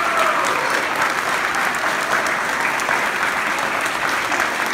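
Wedding guests applauding: steady clapping from many hands that holds at one level.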